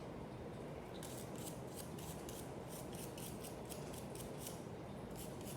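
Soapy nylon nail brush scrubbing a metal nail nipper in quick back-and-forth strokes, about four a second, starting about a second in.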